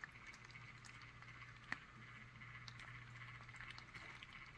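Near silence: a faint, steady low hum from the tumbler turner's motor, with a few faint light clicks, the clearest one a little under halfway through.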